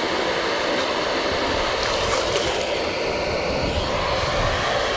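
Electric random orbital sander running steadily, sanding antifouling paint off a boat's hull, with a constant hum.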